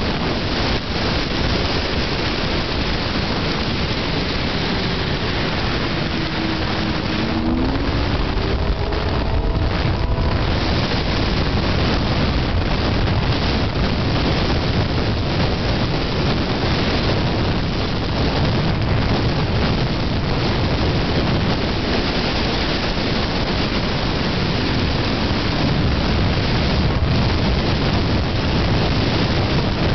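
Yamaha RX-1 snowmobile at high speed, its four-stroke four-cylinder engine running steadily under heavy wind rush over the microphone.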